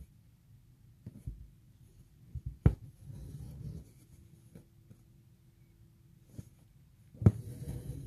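Hand embroidery: a needle and embroidery thread worked through fabric, with soft scratchy rasping as the thread is drawn through the cloth. Two sharp taps sound, a little under three seconds in and again near the end.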